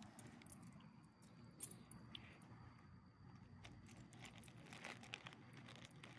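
Near silence, with a few faint clicks and rustles from small dogs and their leashes and collars moving on gravel, over a faint steady high tone.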